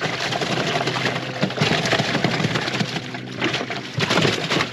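Water splashing and sloshing in a boat's live well as smallmouth bass thrash while being grabbed by hand, a dense run of irregular splashes and slaps.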